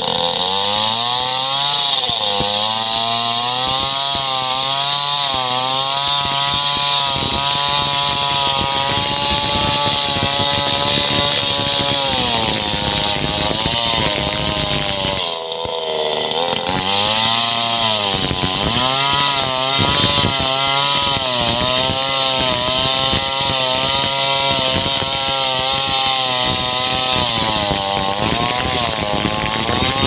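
Two-stroke chainsaw running at high revs while ripping a log lengthwise into planks, its pitch wavering as the load on the chain changes. About halfway through the engine briefly eases off, then revs back up and keeps cutting.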